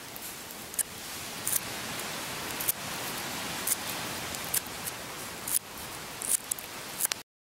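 Small wood fire crackling: a steady hiss with sharp, irregular pops. The sound cuts off abruptly near the end.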